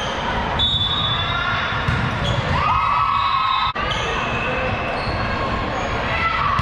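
Indoor volleyball rally: the ball being struck and played back and forth, with players' voices ringing around a large echoing gym.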